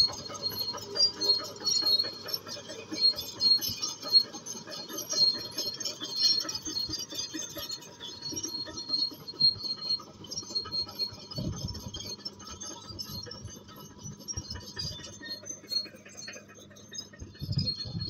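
Komatsu D155A crawler bulldozer's diesel engine running with a steady drone, over a rapid metallic clatter of its steel tracks. The sound grows fainter in the second half as the machine moves away.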